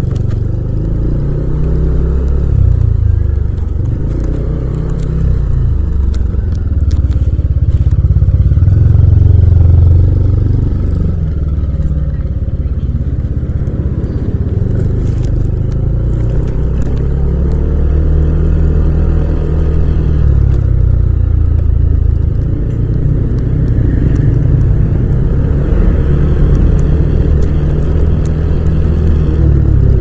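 Yamaha Aerox 155 scooter's single-cylinder engine and exhaust running under way at low speed, the note rising and falling every few seconds as the throttle is opened and eased off, with a few light clicks.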